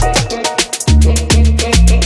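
Background music with a steady beat: deep bass notes and quick percussion hits.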